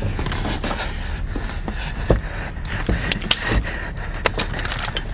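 Low steady rumble with scattered sharp clicks, small knocks and scrapes, the strongest knocks about two, three and three and a half seconds in.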